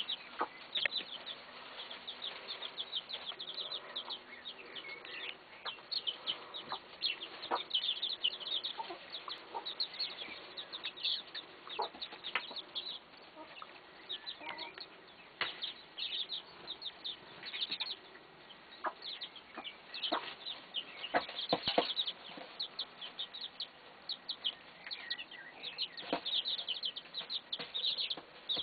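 A brood of young chicks peeping, many short high calls overlapping without a break, with a few sharp taps now and then.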